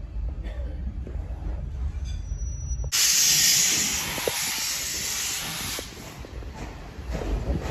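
A low rumble, then a loud, steady hiss of pressure escaping from the steam train starts suddenly about three seconds in and fades out after about three seconds, leaving faint clicks near the end.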